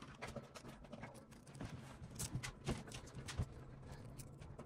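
Faint, scattered light taps and rubbing as a plastic air-assist hose is handled and clipped along a laser engraver's metal frame.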